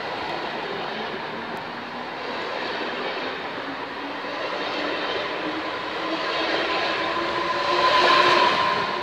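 Electric multiple-unit passenger train passing close by, a steady rolling rumble with a thin whine slowly rising in pitch. It grows loudest about eight seconds in.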